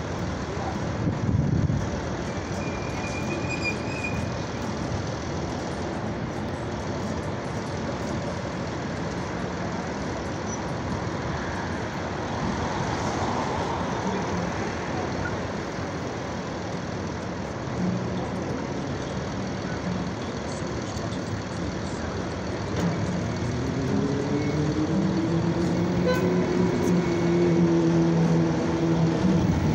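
City street traffic: a heavy vehicle's engine running close by over steady road noise. In the last few seconds an engine speeds up, its pitch rising.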